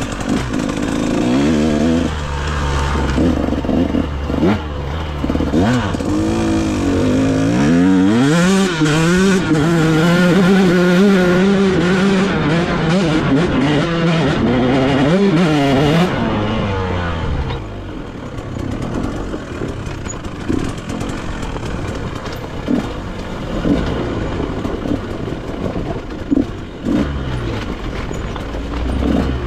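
KTM dirt bike engine revving, its pitch climbing and falling as the throttle is worked up a steep dirt hill. It is loudest from about 8 to 16 seconds in, then drops to a lower, steadier run with clatter over a rocky trail.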